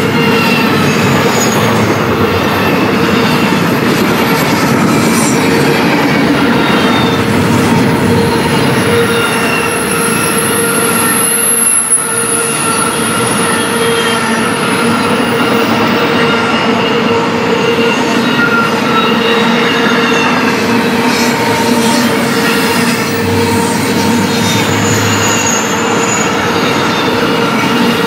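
Intermodal freight cars carrying containers and trailers rolling steadily past, their steel wheels squealing in several held tones; a higher-pitched squeal joins in for several seconds around the middle.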